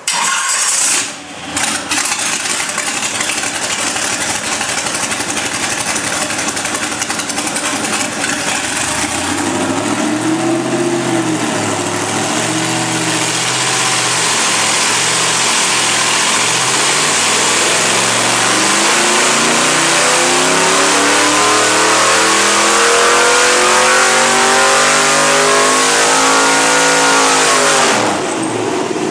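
Chevy 5.3 LS V8 (all-aluminum, 706 heads, stage 1 cam) on an engine dyno: it comes in loud at the start, runs steadily, is revved up and down a few times, then makes a long full-load pull with rpm climbing steadily for about fifteen seconds. Near the end the throttle is chopped and the revs drop away.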